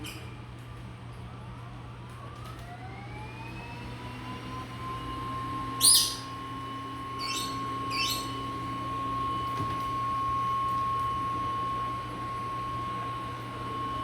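Robot vacuum cleaner starting up: its motor whine rises in pitch over about two seconds, then runs steadily. A rainbow lorikeet gives one loud squawk about six seconds in and two shorter calls a second or two later.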